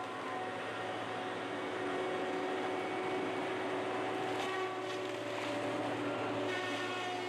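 Tigercat wheeled feller buncher running steadily under load, a constant machine hum with several held tones, as its felling head grabs and cuts bamboo stems. Brief rushes of noise come about four and a half seconds in and again near the end.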